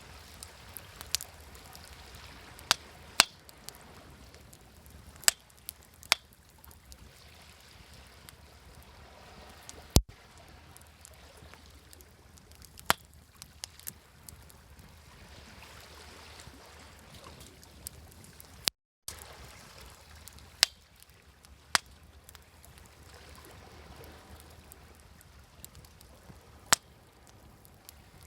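Wood fire crackling, with sharp pops at irregular intervals over a steady wash of sea waves. All sound briefly cuts out about two-thirds of the way through.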